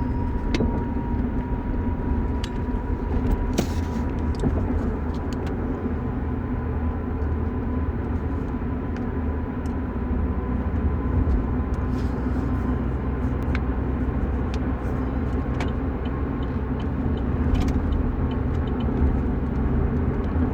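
Steady low rumble of a car in motion, with a faint thin whine that fades out about halfway through and a few light clicks.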